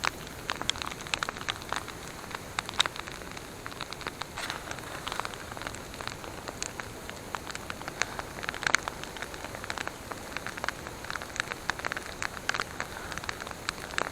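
Wood campfire crackling, with irregular sharp pops over a steady hiss. The loudest pop comes about nine seconds in.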